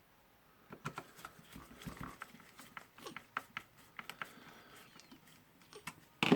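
Irregular clicks and light knocks of small screws and plastic housing parts being handled and fitted on a rotary hammer drill, with one sharp, loud click near the end.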